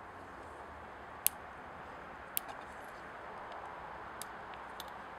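Four light, sharp metallic clicks, the first two the loudest, as the cylinder is worked down over the piston and ring strip on a chainsaw crankcase, over a steady background hiss.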